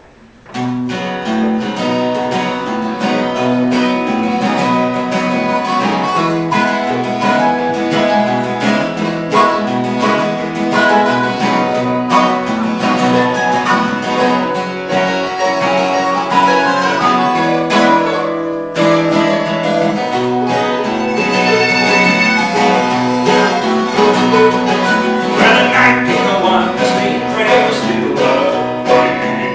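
Acoustic folk trio of acoustic guitar, mandolin and harmonica playing an instrumental passage; the music starts about half a second in, and high held harmonica-like notes come in over the strumming in the second half.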